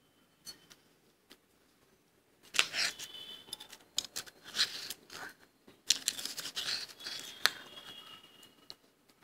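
A metal spoon scraping and scooping soft freezer frost in a ceramic bowl. It is a crunchy scrape that starts about two and a half seconds in and lasts about six seconds, with a few sharp clicks of the spoon.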